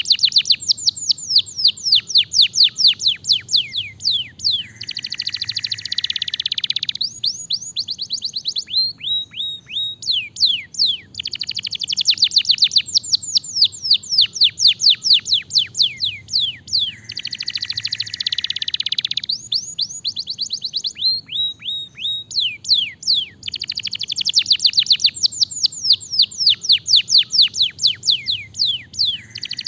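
Domestic canary singing: long runs of rapid downward-sweeping notes, broken every twelve seconds or so by a lower, buzzy rolling trill.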